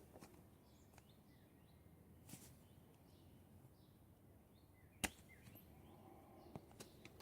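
Near silence on a workbench, broken by a few small clicks and knocks of tools and parts being handled, the sharpest about five seconds in.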